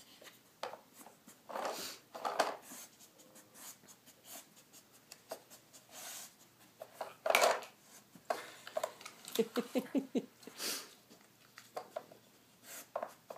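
Irregular plastic clicks, knocks and scrapes as a dog noses at a Nina Ottosson plastic drawer puzzle, pushing its drawers open. About nine to ten seconds in there is a quick run of short rattling knocks.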